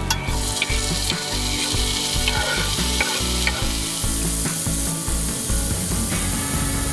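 Diced tomatoes, shallots and garlic sizzling in a stainless steel frying pan as they are stirred, with a few clinks of the utensil against the pan. The sizzle grows stronger about four seconds in.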